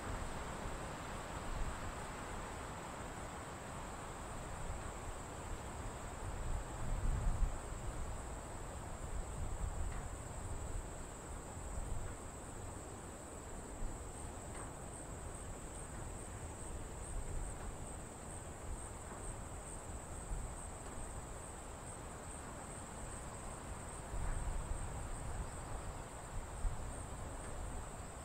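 Tropical insects chirring in a steady high drone, over a low rumble that swells twice, around seven seconds in and near the end.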